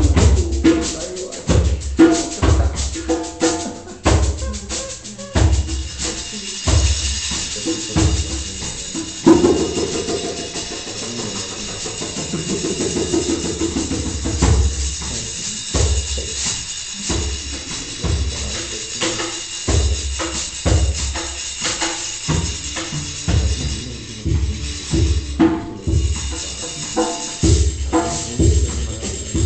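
Hand-percussion music: a djembe playing a steady beat of deep bass strokes and sharp slaps, with the ringing notes of a hang.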